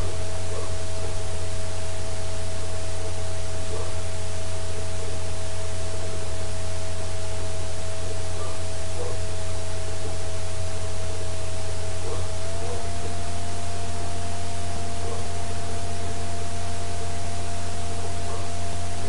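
Steady low electrical hum with constant hiss: the recording's background noise. A few faint steady tones sit above it, one shifting slightly upward about two-thirds of the way through.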